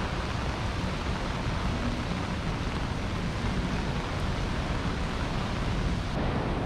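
Steady rain, an even hiss with a low rumble underneath.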